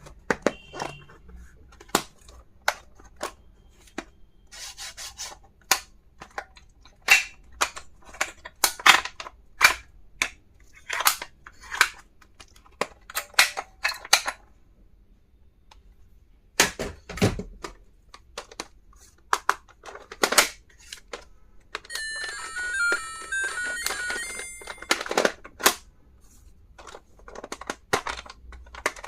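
Sharp clicks and taps of small plastic stationery and toys being handled, opened and snapped shut. Late on comes a short electronic beeping melody lasting about two seconds.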